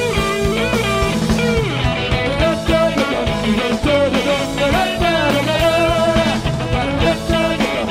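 Live rock band playing: electric guitar, bass and drum kit, with a male lead vocal singing over them.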